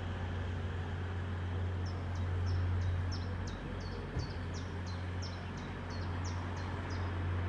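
Steady low hum of a Class 180 diesel multiple unit idling at the platform, ready to depart. A small bird chirps rapidly over it, about three short chirps a second, from about two seconds in until near the end.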